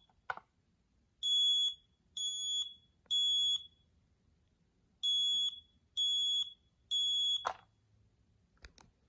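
Kidde/FireX i4618AC ionization smoke alarm sounding on test: two rounds of three high-pitched beeps, the temporal-three alarm pattern. A click just after the start and another near the end.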